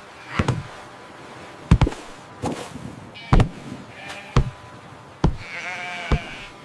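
Cartoon sheep bleating: a couple of short bleats, then one longer wavering bleat near the end. A run of sharp, irregular knocks sounds through it.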